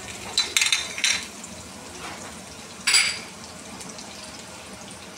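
Tadka of cumin seeds, ginger and chopped garlic sizzling in hot oil in a nonstick frying pan while a silicone spatula stirs it. Scraping and clinking in the first second, and one louder, sharp clack of the spatula on the pan about three seconds in.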